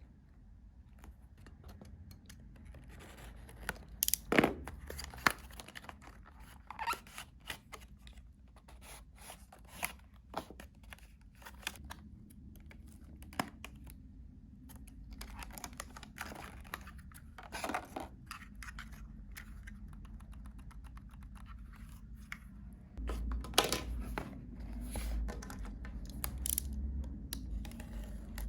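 Packaging being handled and opened: intermittent tearing, scraping and crinkling of cardboard and plastic wrap, with sharp clicks and knocks. The loudest come about four seconds in and again near the end, where close handling adds a low rumble.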